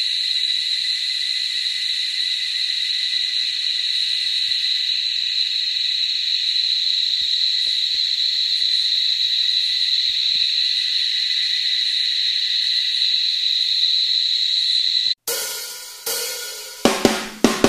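Insect chorus in the bush, a steady loud high-pitched drone. It cuts off abruptly about 15 seconds in, when music with drum hits begins.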